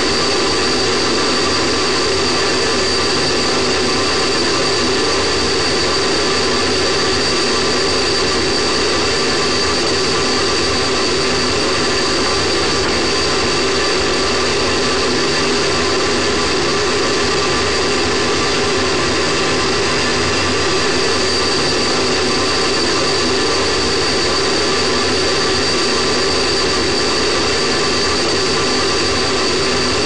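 Space Shuttle solid rocket booster burning in powered ascent, heard through its own booster-mounted camera: a loud, steady rushing noise that does not change, with a thin steady high whine over it.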